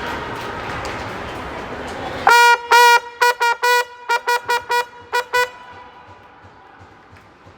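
A horn held on one pitch is blown in a rhythmic cheer pattern: two longer blasts, then about ten short quick ones, ending at about five and a half seconds in. It follows a couple of seconds of gym crowd noise.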